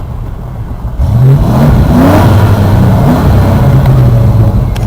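1991 Ford F-150's warmed-up 302 V8 idling, then revved about a second in, the pitch rising and falling back before it holds at a steady, louder note.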